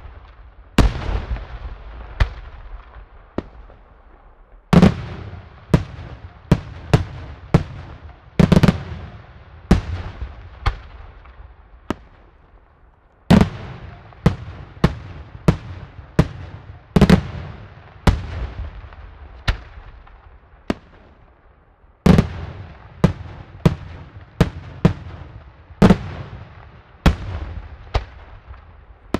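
Daytime aerial fireworks shells bursting in a rapid, irregular series of loud bangs, each echoing and fading. The heaviest blasts come about every four seconds among smaller reports.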